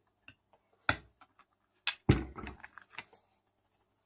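Small handling noises of slime-making materials on a tabletop: a couple of sharp clicks, then a heavier knock about two seconds in followed by a few light ticks.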